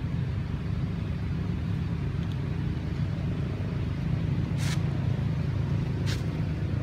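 Steady low rumble of outdoor background noise, with two short hissy rustles about a second and a half apart near the end.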